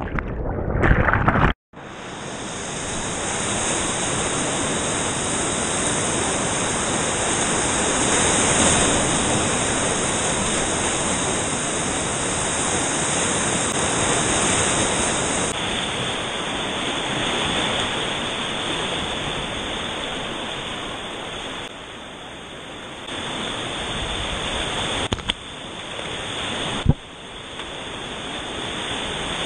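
Whitewater rapids rushing steadily, heard from an action camera close to the water. In the first two seconds the camera goes under and the sound turns muffled and briefly cuts out; near the end there is one sharp knock.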